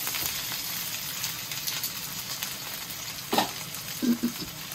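Rolled chicken sizzling steadily as it pan-fries in a frying pan. Brief voice sounds come in about three and a half seconds in and again just after.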